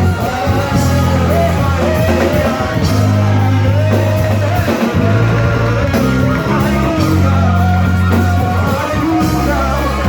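Church worship music: singing voices over instrumental backing with long, held bass notes.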